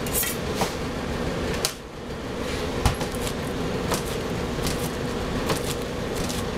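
A pizza being cut in its cardboard box with a long straight knife blade: a few sharp knocks and clicks as the blade is pressed down through the crust, the loudest about three seconds in, over a steady hum of kitchen machinery.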